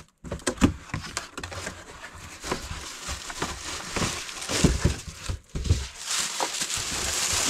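Cardboard box being opened by hand, the flaps rubbing and knocking, with a few dull thumps as the contents are handled; from about six seconds in, a welding helmet's clear plastic bag crinkles steadily as it is lifted out.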